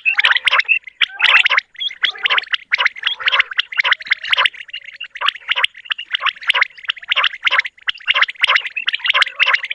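Common quail calling over and over in quick, short, chirpy notes, about four or five a second, easing briefly about halfway through.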